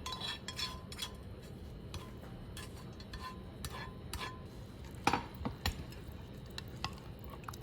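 A spoon scraping and clinking against a metal pan and bowl as the cooled snake gourd seasoning is spooned into yogurt and stirred. Scattered light clinks, some ringing briefly, with the loudest ones about five seconds in.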